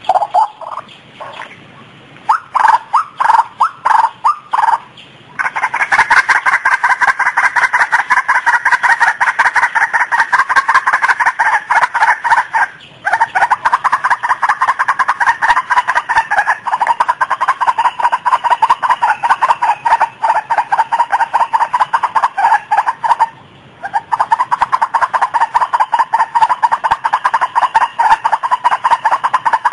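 White-breasted waterhens (ruak-ruak) calling: a loud, fast run of repeated notes. A few spaced calls come first, then an unbroken stream from about five seconds in, which breaks off briefly twice.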